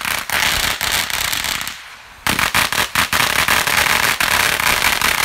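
Firework going off loudly with rapid, dense popping and crackling, in two bouts with a short lull about two seconds in.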